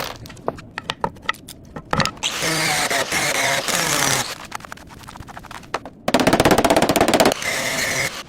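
Workshop tool sounds: scattered clicks and knocks, then a power tool whirring with a falling pitch for about two seconds. About six seconds in comes a loud, rapid rattle lasting just over a second, followed by a shorter burst of noise.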